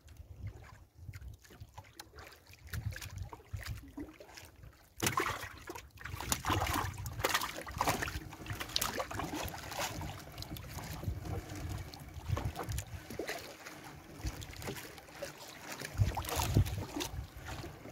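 Wet fishing net being hauled in over the side of a wooden outrigger boat: water splashing and dripping off the mesh, with small knocks and crackles, starting abruptly about five seconds in. A low wind rumble on the microphone lies underneath.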